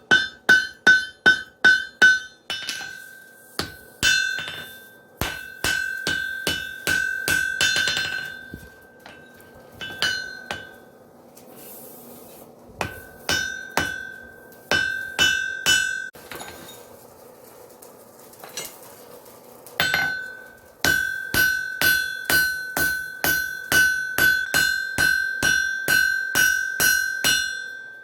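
Hand-hammer blows on an anvil while hot wrought iron is rough-forged into an axe body, each strike ringing. The blows come in runs of about two or three a second, with short pauses between runs.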